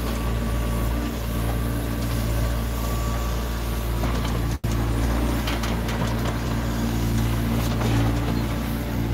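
Wheeled excavator's diesel engine running steadily while its boom and bucket push and spread sand. The sound drops out for an instant about halfway through.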